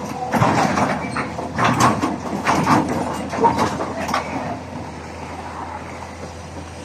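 A heavy truck hauling a chained-down backhoe on a rough road, with irregular metallic clanks and rattles over the first four seconds, then a steadier running noise.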